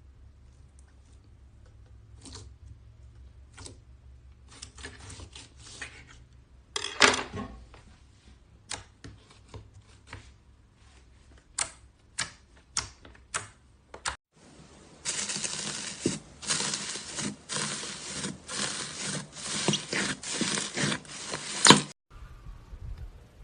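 Slime being pressed and squeezed by hand, giving scattered sharp clicks and pops. About two-thirds of the way through it turns to a dense, continuous run of crackling for several seconds, then stops abruptly.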